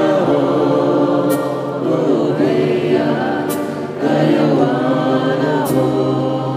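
Slow devotional chant sung in long held notes to a strummed acoustic guitar.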